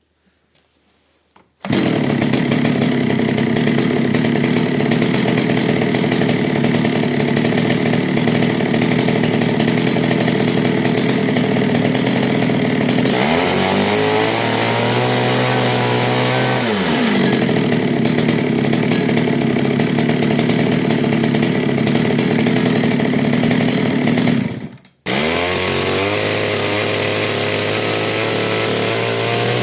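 Stihl 020 two-stroke chainsaw starting suddenly about a second and a half in and running steadily, revved up for a few seconds near the middle and dropping back. Near the end it cuts out for a split second, then comes back revving and holds high.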